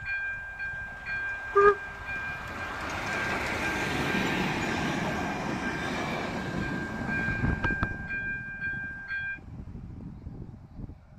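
Steam locomotive and its passenger carriages passing close by, with a rumble that swells and fades, and a few wheel clicks near the end. A short loud whistle blast sounds about two seconds in. The level crossing's electronic warning bell rings steadily throughout and stops about nine seconds in.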